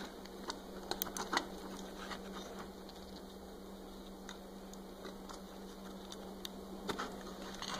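Light, scattered clicks and ticks of Dupont jumper-wire connectors and fingers working on the header pins of an Arduino CNC Shield V3 as an endstop cable is plugged in.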